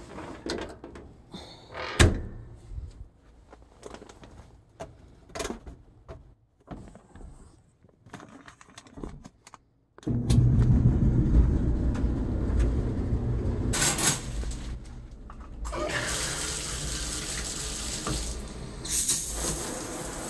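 Clothes and the lid handled in a top-loading washing machine with scattered soft knocks, then about halfway a sudden, steady rush of water as the washer starts filling its tub.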